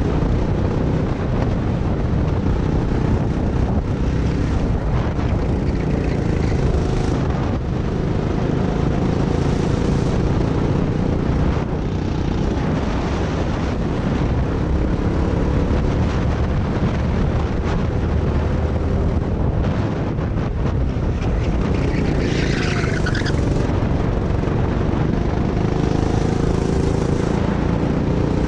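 Go-kart engine running hard, heard from the driver's seat. Its pitch rises and falls under a heavy rush of wind on the onboard microphone, and a short higher hiss comes a little after two-thirds of the way through.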